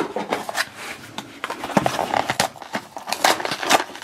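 Hands handling and opening a small cardboard blind box: the cardboard scraping and rubbing against fingers, with many quick scratchy strokes.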